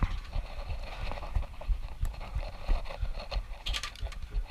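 Irregular footsteps, knocks and rustling of a moving player's gear, with a short run of sharp clicks about three and a half seconds in.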